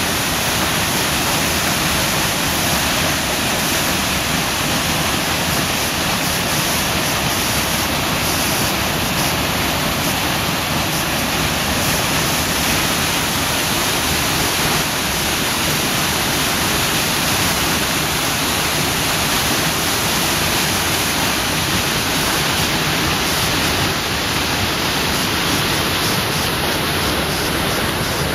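Waterfall rushing into a rocky gorge: a loud, steady roar of falling water that holds even throughout.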